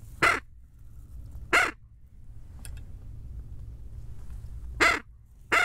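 Duck call blown in short, loud single quacks, four in all, with a long pause between the second and third, calling to ducks that are approaching the blind.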